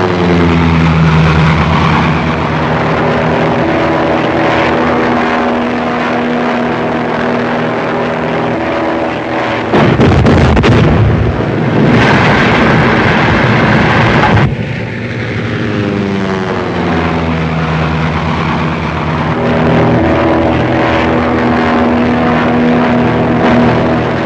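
Propeller aircraft engine droning steadily, its pitch falling as it passes near the start and again after the middle. About ten seconds in, a loud rushing roar lasting some four and a half seconds covers it, then cuts off sharply.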